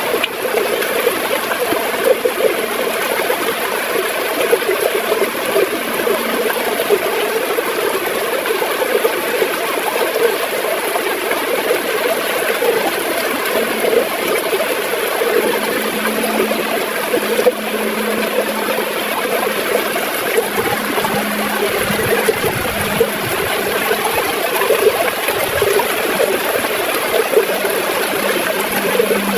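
River water flowing and gurgling steadily, an unbroken rush.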